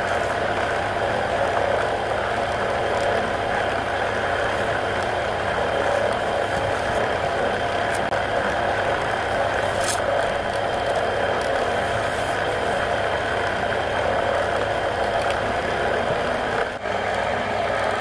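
Belt-driven homemade wood lathe running steadily, its pillow-block bearings and pulleys spinning a wooden bowl with a steady mechanical hum. About ten seconds in, a brief high scrape as a metal tool touches the spinning rim.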